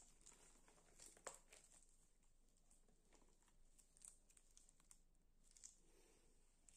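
Near silence with faint crinkling and a few soft clicks: gloved hands handling a flexible silicone mould as set chocolate is popped out of it. The sharpest click comes about a second in.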